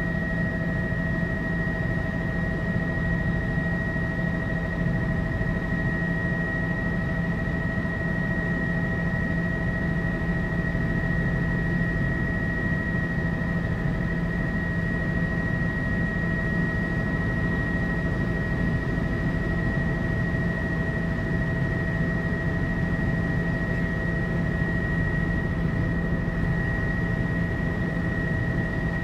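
Tour helicopter in cruising flight, heard from inside the cabin: a steady engine and rotor drone with a steady high whine running over it.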